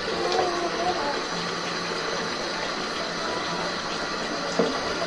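Water running steadily from a tap into a sink, an even rush, with a short knock near the end.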